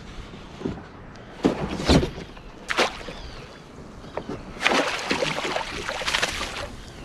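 A hooked fish splashing and thrashing at the surface as it is scooped into a landing net beside a kayak. There are a few short splashes, then a longer bout of splashing about two-thirds of the way through.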